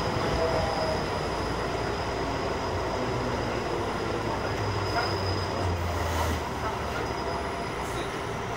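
Enshu Railway Moha 25 electric railcar running along a station platform, heard from inside the car: steady wheel and running noise with a thin, high steady whine that stops about seven seconds in.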